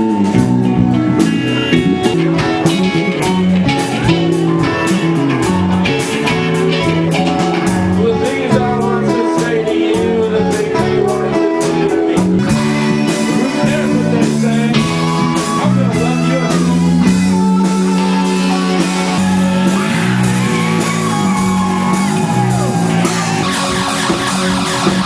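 A dance punk band playing live, heard through a camcorder's microphone: electric guitar, bass and drums with a steady beat, and some singing.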